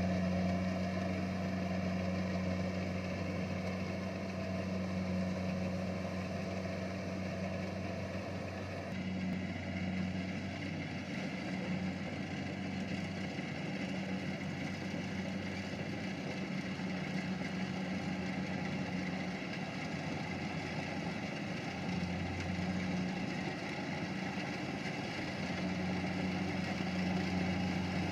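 Kubota rice harvester's engine running steadily at an even speed, a continuous low drone with a slight shift in tone about nine seconds in.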